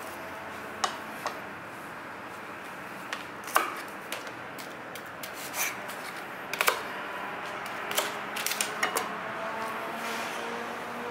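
Scattered sharp taps and clicks of hands, knife and utensils working on a cutting board while a snapper is butterflied, with a quick run of taps near the end, over a steady kitchen hiss.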